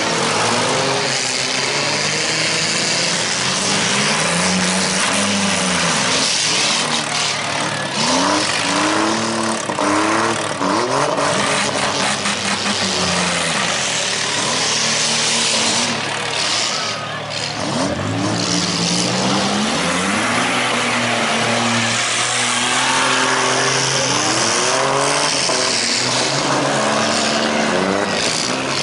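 Several demolition-derby cars' engines revving up and falling back again and again, with a few short knocks among them.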